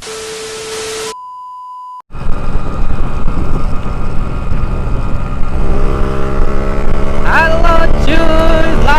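A short burst of hiss with a steady tone, then a steady beep, each about a second long. Then a Yamaha RX-King two-stroke single-cylinder motorcycle engine is heard while riding, with heavy wind rumble on the microphone. From about halfway, its note steps and glides up several times with the throttle.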